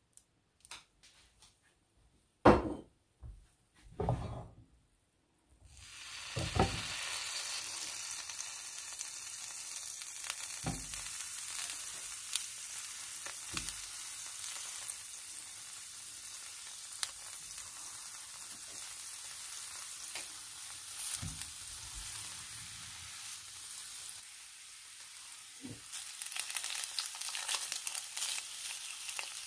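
A few knocks, then aubergine slices sizzling in hot oil as they are laid on a ridged grill pan. The steady sizzle starts about five seconds in and grows louder near the end as a salmon fillet goes on.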